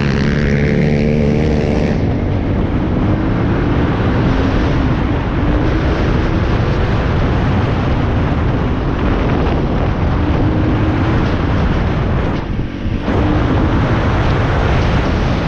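Dirt bike engine running under throttle while riding, its pitch rising and falling as the throttle changes, over a steady rushing noise. About three-quarters of the way through it briefly drops off the throttle, then picks up again.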